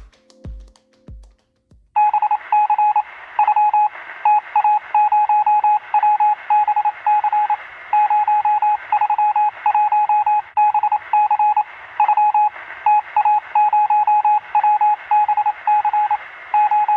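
A single electronic beep tone keyed on and off in short and long pulses, like Morse code, over a steady radio-like hiss. It starts about two seconds in, after a few fading low drum hits.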